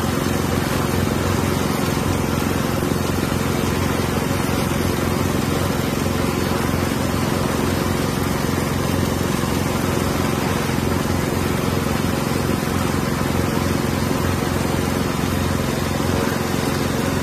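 Large multirotor cleaning drone's propellers running in a steady hum, mixed with the rush of strong wind.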